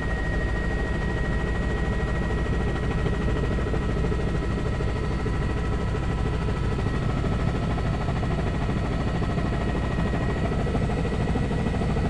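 Helicopter in steady flight, heard from inside the aircraft: a fast, even rotor chop under a constant engine whine.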